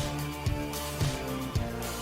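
Background music with a steady beat, a drum hit about twice a second under held notes.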